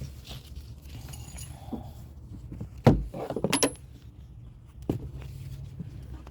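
Seat belt hardware handled during reinstallation: a sharp knock about three seconds in, a quick run of metal clinks just after, and another knock near the end.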